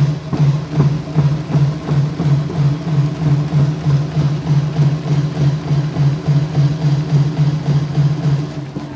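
Stadium cheering drumbeat pounding steadily at about four beats a second, easing off near the end.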